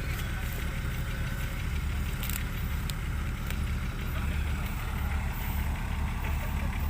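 Diesel engine of heavy machinery idling steadily, a low even rumble, with a couple of faint clicks about two and three seconds in.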